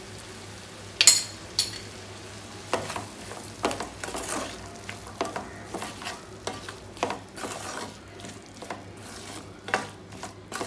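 Wooden spatula stirring and scraping chopped onions, tomatoes, cashews and spices around a metal frying pan, the food sizzling in the hot oil and butter. A sharp knock about a second in, then repeated irregular scraping strokes.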